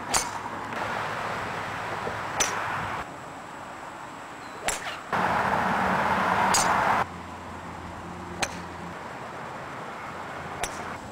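Golf drivers striking balls off the tee, a sharp ping or click with each drive, about six strikes roughly two seconds apart, over outdoor background noise that changes in level between the clips.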